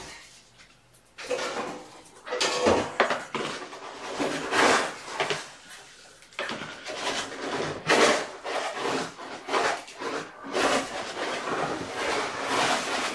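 Repeated, irregular scraping and rubbing strokes from something being handled, with a short pause about halfway through.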